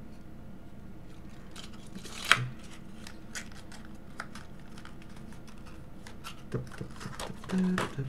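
Hands handling vape coil packaging, a plastic blister pack and small cardboard boxes, making a string of light clicks and crinkles, with one sharp click a couple of seconds in.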